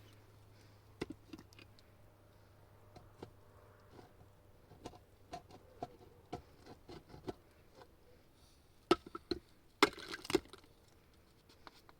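Irregular light taps and clicks of hard objects, with a cluster of louder knocks about nine to ten and a half seconds in.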